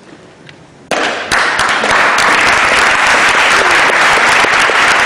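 Audience applauding, starting suddenly about a second in, swelling a moment later and then holding as steady, loud clapping.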